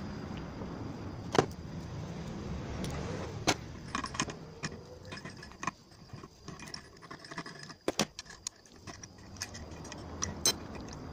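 Scattered sharp metallic clicks and clinks of hand tools and a crankcase splitter working on a motorcycle engine's aluminium crankcase as it is being split. The loudest click comes a little over a second in, over a low background rumble.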